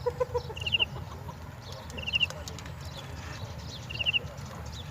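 A bird calling: a short, high, quick run of about four notes, repeated roughly every two seconds, over a low background rumble.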